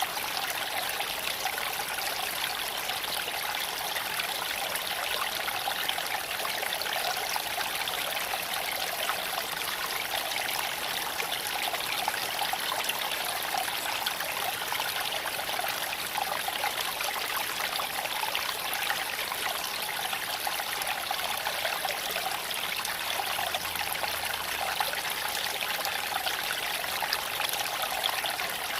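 Creek water flowing and trickling steadily over stones.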